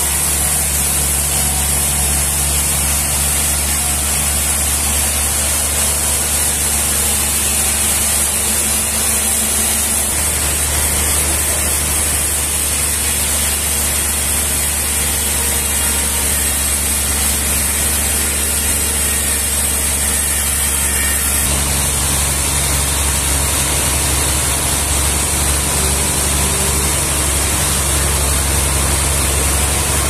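Large band sawmill running steadily, its blade cutting lengthwise through a big trembesi (rain tree) log: a constant low motor hum under a strong high hiss. The tone of the running changes about ten seconds in and again a little past twenty seconds.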